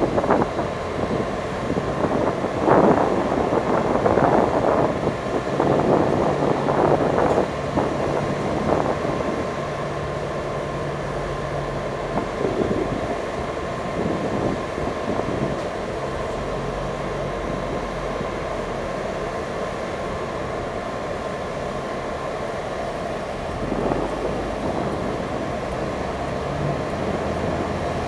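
Wind buffeting the microphone in gusts over the steady low drone of a ferry's engines on its open deck; the gusts ease after about nine seconds, leaving mostly the engine hum.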